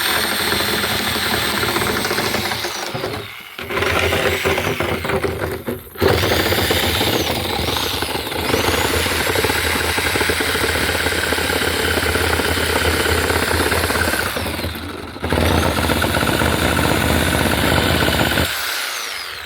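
Power saw cutting through wood in about four long runs with short pauses between them, the motor's pitch rising as each run starts and falling as it stops.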